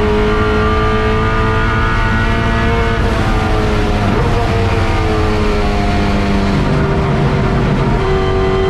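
Chevrolet Camaro touring car's V8 racing engine at high revs, heard from inside the stripped race cabin. The engine pitch holds fairly steady, dips briefly about four seconds in and drops again near the end.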